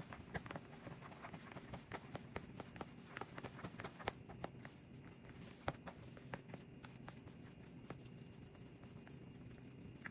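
A hand kneading and mixing raw ground-meat and rice stuffing in a bowl: faint, irregular soft clicks, thinning out after about six seconds, over a low steady hum.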